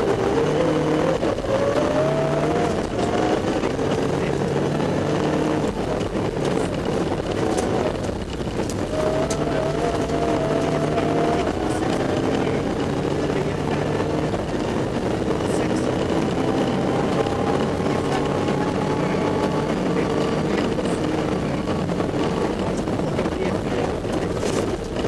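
Rally car engine heard from inside the cabin, driven hard on a snowy gravel stage: the revs climb and drop back at each gear change several times, over steady tyre and road noise.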